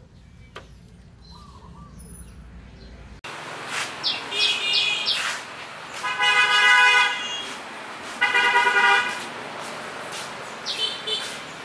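A horn honks twice, each a steady-pitched honk of about a second, with short high chirps around them.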